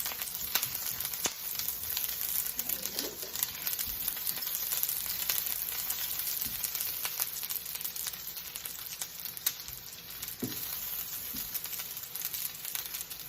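Chopped onion and garlic sizzling in hot oil and sesame oil in a frying pan, with a steady hiss and frequent small crackling pops.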